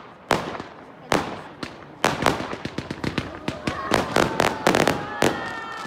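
Fireworks display: aerial shells bursting with sharp bangs, a few spaced ones at first, then a rapid, dense volley of bangs from about two seconds in.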